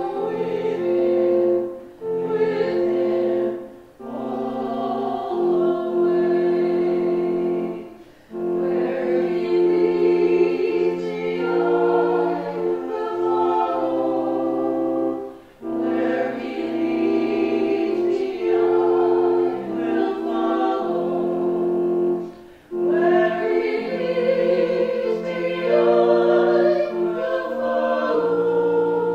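Small church choir singing a hymn, sustained phrases over steady low held notes, with brief breaks between phrases every few seconds.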